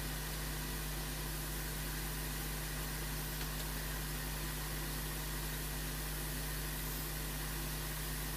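Steady low hum under an even hiss, with no distinct events: the background noise floor while soldering goes on silently.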